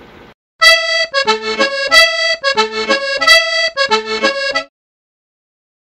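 Short instrumental music clip, a quick melody in short clipped notes, starting about half a second in and cutting off suddenly about four and a half seconds in.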